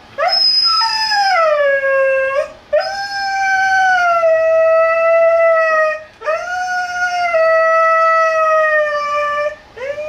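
A dog howl-whining as its owner says goodbye and leaves: three long, drawn-out calls, each rising sharply and then sliding slowly down in pitch, with short breaths between.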